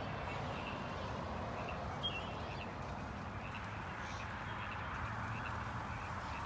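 Large murmurating flock of small birds giving a dense, continuous chatter of many short calls.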